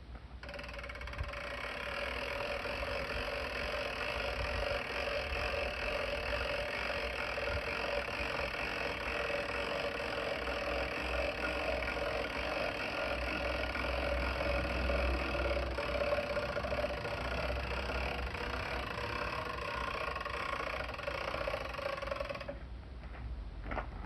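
Electric winch motor of a truck-bed kayak lifter running steadily with a constant hum, hauling the kayak up, then cutting off suddenly near the end.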